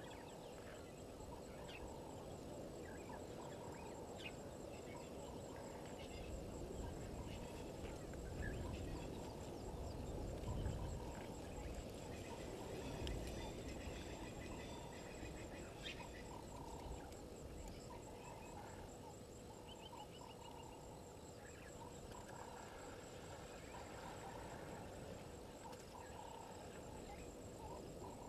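Waterhole night chorus: frogs calling in short repeated notes over a steady, fast-pulsing high insect trill, with a low rumble swelling briefly around the middle.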